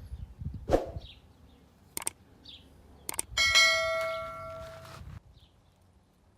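A few sharp knocks, then a steel machete blade struck and ringing in a clang that fades over about a second and a half. Birds chirp faintly in the background.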